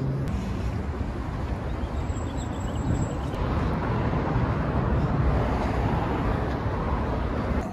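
Steady outdoor street noise: a low rumble of city traffic, swelling a little midway.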